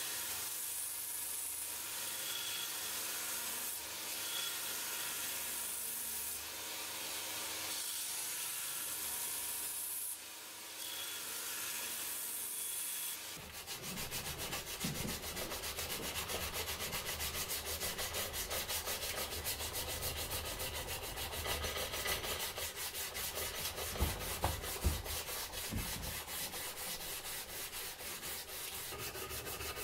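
A belt grinder's abrasive belt running against a wooden knife handle: a steady grinding hiss with a faint motor hum, briefly easing off about ten seconds in. About halfway through it gives way to hand sanding, abrasive paper rubbed in quick, even back-and-forth strokes along the leaf-spring steel blade, with a few light knocks late on.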